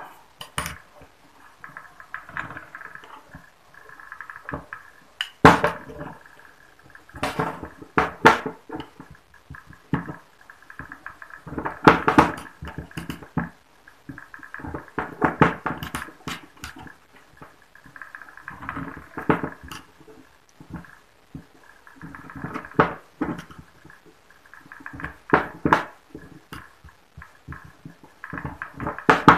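Screwdriver scraping and clicking against a Yamaha Autolube two-stroke oil pump's metal housing while a new oil seal is pushed fully home. It comes in irregular bursts of scrapes and taps every second or two.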